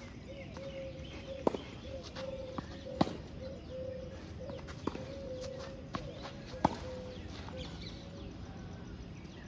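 Tennis ball struck by rackets and bouncing on a clay court during a rally: a string of sharp pops at uneven gaps, three of them much louder than the rest.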